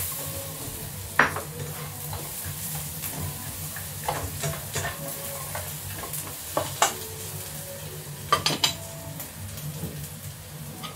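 Pork belly sizzling in a nonstick wok as a spatula stirs it, with scraping and sharp clacks of the spatula against the pan, three in quick succession near the end. A steady low hum runs underneath.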